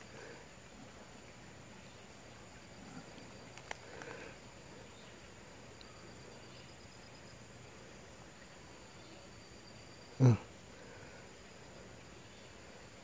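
Quiet forest ambience with a continuous high, thin insect drone like crickets. There is a small click near four seconds, and one brief voice-like sound about ten seconds in.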